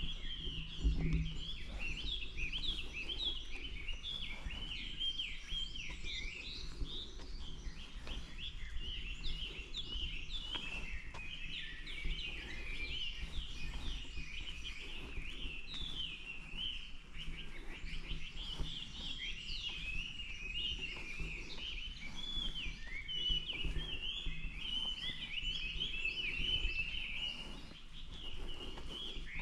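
A dense chorus of small birds chirping and chattering, many short calls overlapping.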